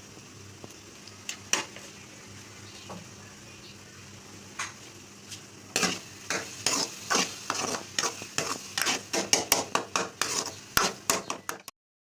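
Baingan bharta frying in a pan with a low steady sizzle and a few clicks of a spatula. About six seconds in, the spatula starts stirring and scraping against the pan in quick strokes that speed up to about four a second, until the sound cuts off suddenly near the end.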